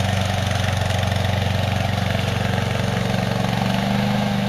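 Gas engine of a Hybrid Goat 22T remote-control slope mower running steadily. Its pitch rises slightly near the end.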